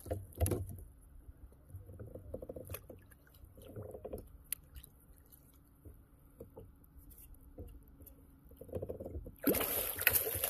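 Faint clicks and small knocks of a baitcasting reel and rod being worked from a kayak. About a second before the end, a sudden loud rush of noise starts as the rod is swept up to set the hook, and it carries on.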